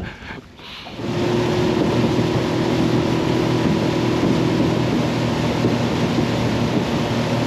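Motorboat running at speed: a steady engine drone under rushing water and wind noise, coming in suddenly about a second in and holding steady.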